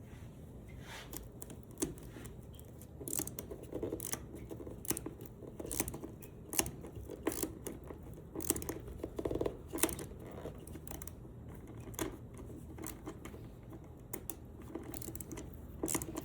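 Mini ratchet clicking in uneven strokes while driving a steel threaded insert into a wooden tabletop by hand.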